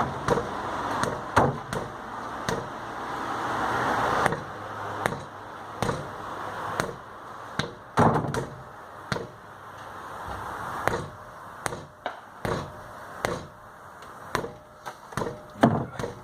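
Repeated hammer blows, irregular and roughly one a second, against a car wheel seized to the hub by rust, struck to break it free. Under the first few blows a rushing noise swells and stops about four seconds in.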